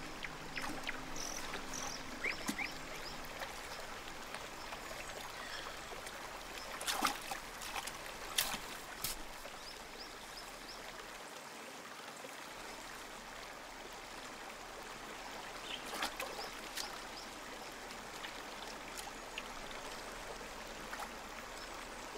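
Shallow rocky stream trickling steadily, with a few short sharp splashes in the middle.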